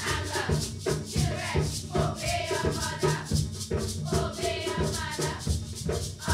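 A group of girls singing together over a steady, fast percussion beat.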